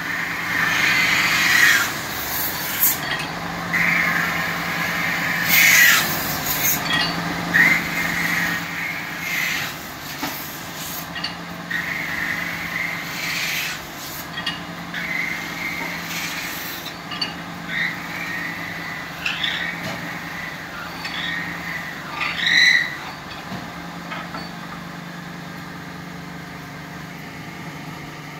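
Lathe spinning an aluminium container on a mandrel while a long hand-held tool is pressed against the metal: a steady motor hum under repeated scraping squeals from the tool on the aluminium, more frequent in the first several seconds and sparser toward the end.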